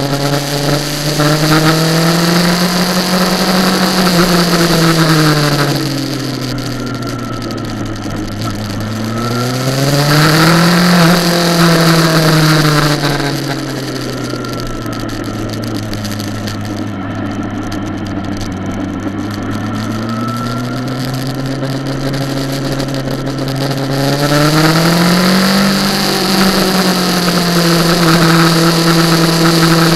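Kawasaki ZX-10R's inline-four engine heard on board, its revs climbing and falling as the bike accelerates out of corners and rolls off into them, with rushing wind noise on the microphone. The revs rise twice early on, stay low and quieter for a long stretch in the middle, then climb again near the end and hold.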